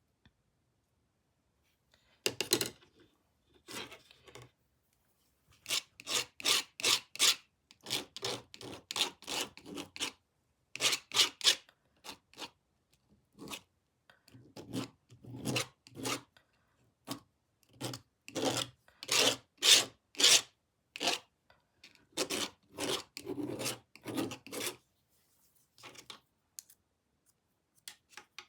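Red paint being scraped across a painted board with a scraper, in quick repeated strokes of about three a second. The strokes come in several runs with short pauses between them.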